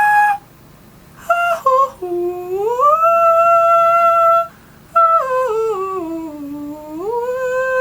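A man's voice sustaining pure, humming-like high-pitched vowel tones: a short note, then a glide up to a long held note, then a stepwise slide down and back up to another held note. This is the high-pitch step of a beatboxed sonar searching sound.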